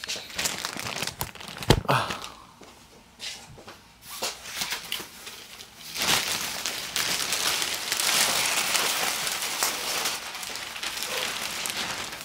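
Clear plastic garment bag crinkling and rustling as a puffer coat is pulled out of it: scattered crinkles at first, then dense, continuous rustling through the second half. A single soft bump just before two seconds in.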